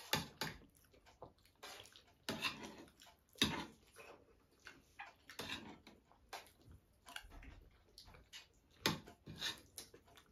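Eating sounds: spoons scraping and clinking against metal plates, with wet mouth sounds of chewing and slurping, in short irregular bursts.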